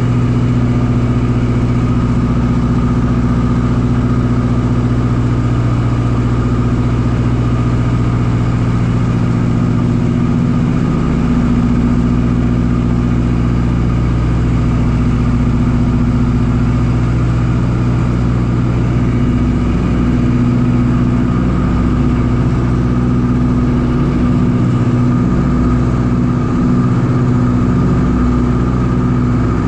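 The Ford Tri-Motor's three radial engines drone steadily in cruising flight, heard from inside the cabin. The pitch shifts slightly about ten seconds in, and the tone wavers in the second half.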